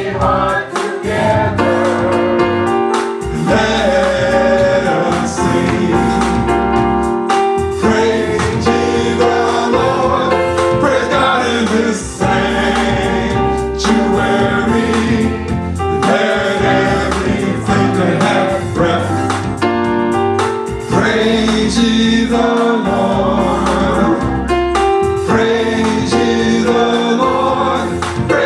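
Live gospel praise-and-worship music: a choir singing over a full band with a steady beat.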